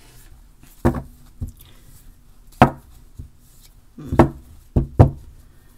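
A tarot deck being knocked and tapped on a tabletop as it is handled: about seven sharp, uneven knocks, with two coming close together near the end.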